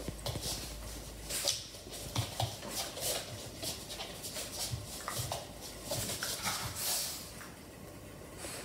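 A miniature schnauzer and a Havanese puppy play-fighting: short, irregular dog vocalisations mixed with scuffling and scrabbling of paws on a rubber exercise mat.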